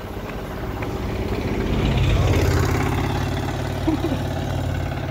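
A three-wheeled auto-rickshaw's small engine running as it comes up from behind and passes, loudest about two seconds in and then fading as it pulls away. A short squeak sounds about four seconds in.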